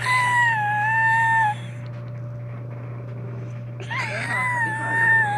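Small dog whining in two long, high-pitched drawn-out whines: the first lasts about a second and a half, and the second starts near four seconds in and is still going at the end.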